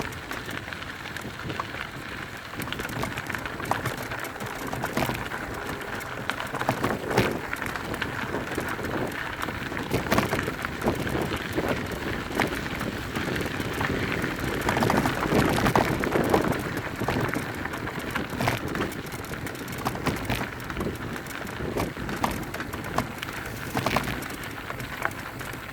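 Mountain bike rolling down a dirt trail: tyres crunching over loose ground, with frequent sharp knocks and rattles from the bike over bumps.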